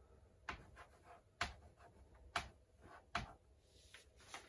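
Chalk on a chalkboard while numbers are written: a series of faint, sharp taps, roughly one a second.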